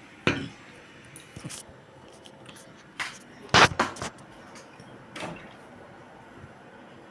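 A handful of sharp knocks and bumps, the loudest pair a little past the middle, like things being handled and set down.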